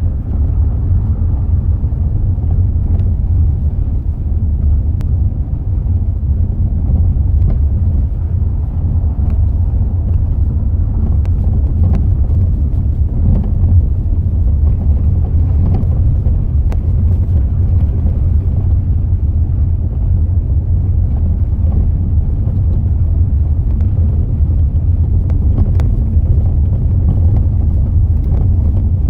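Steady low road-and-running rumble of a Mazda 6 on the move, with faint scattered knocks from the front steering and suspension, the fault being recorded. The rumble is the loudest thing throughout.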